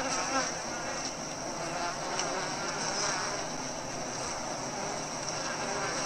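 Many honeybees buzzing close up in a swarm, a steady hum of wings.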